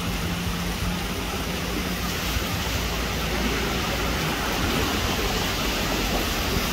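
Steady rushing wash of floodwater and traffic on a waterlogged street, slowly growing louder as a car ploughs through the water, its wheels throwing up spray. A low steady hum sounds in the first couple of seconds.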